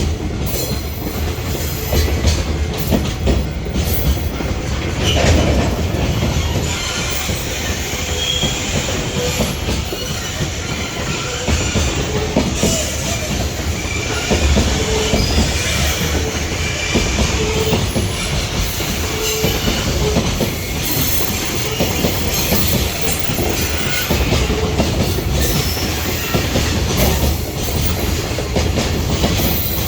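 Container freight train rolling past: a steady, loud wheel-on-rail rumble and clatter, with short wheel squeals now and then.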